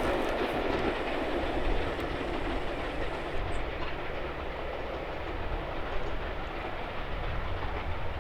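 Steam-hauled rail tour train rolling past on the track, its coaches' wheels running over the rails. The noise is loudest at first and slowly eases off as the train draws away.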